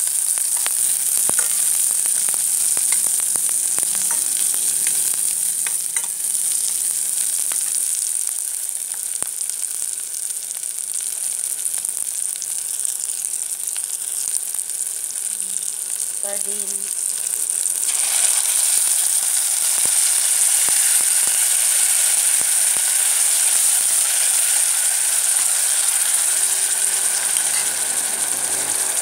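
Food frying and sizzling in a pan while it is stirred, with scattered clicks and knocks of the utensil against the pan. About two-thirds of the way in, the sizzle grows louder and fuller.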